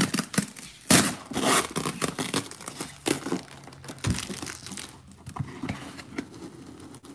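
Packaging of a boxed collectible figure being handled: the packing material crinkles and crackles. The loudest sharp crackles come in the first second and a half, followed by quieter, scattered handling noises.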